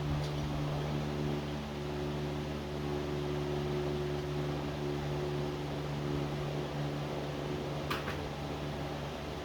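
Electric fan running with a steady hum. A single light click about eight seconds in.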